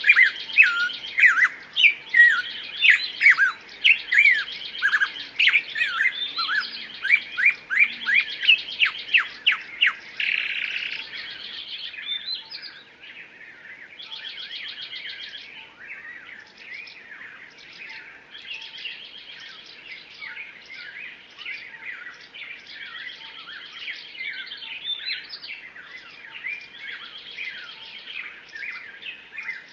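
Songbirds chirping and singing: loud, rapid downward-sweeping chirps for about the first ten seconds, then a fainter, denser chorus of several birds chattering.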